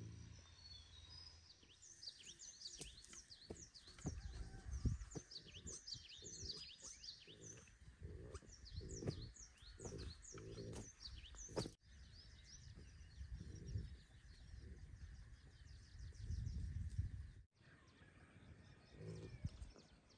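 Small birds chirping in quick, falling notes, thickest in the first half, over faint low rumbling.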